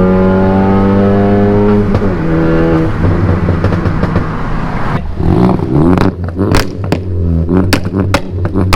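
Ford Focus ST's turbocharged 2.0 EcoBoost four-cylinder accelerating hard, its engine note rising, then lifting off about two seconds in. From about five seconds in the exhaust fires a rapid string of sharp pops and bangs on the overrun, set off by the flashed crackle map.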